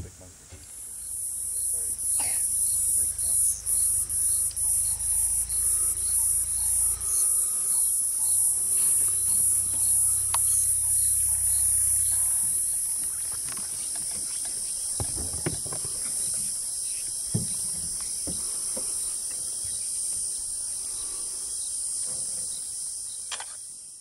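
A shrill chorus of insects in the bush, pulsing about twice a second at first and then running more steadily.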